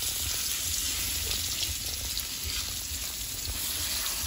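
Flour-coated pork chops sizzling in hot oil in a frying pan, a steady hiss, while a metal spatula turns them.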